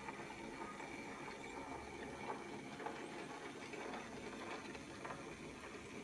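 Posch H0e model of a C50 narrow-gauge diesel locomotive running slowly along the track: a faint steady motor whine with scattered light clicks.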